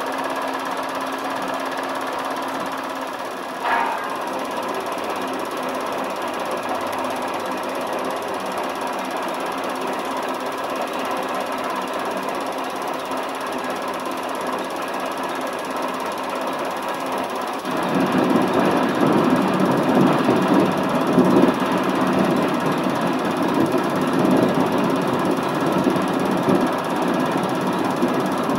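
Film projector running: a steady mechanical whir of the film transport with fixed tones through it. There is a brief click about four seconds in, and about eighteen seconds in the running sound becomes louder and fuller.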